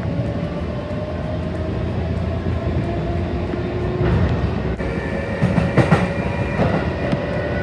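Sanyo Electric Railway train running, heard from inside the front car: a whine rises slowly in pitch as the train gathers speed. A few knocks from the wheels over rail joints come a little after halfway.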